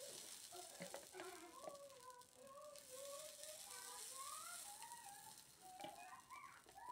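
Near silence: a faint wavering melody and a few soft clicks.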